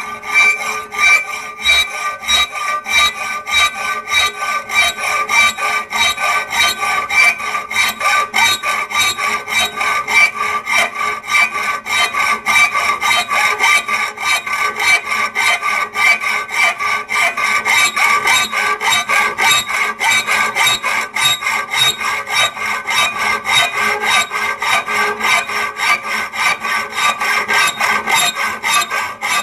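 Hand hacksaw cutting through steel rebar held in a bench vise: fast, even back-and-forth strokes of the blade rasping on the metal. A steady high ringing from the steel runs under the strokes.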